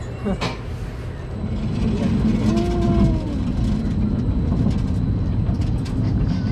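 Roller coaster chain lift hauling the car up a vertical lift hill: a dense, steady clanking rattle that grows louder about a second and a half in, with fast clicking on top. A single knock comes just after the start.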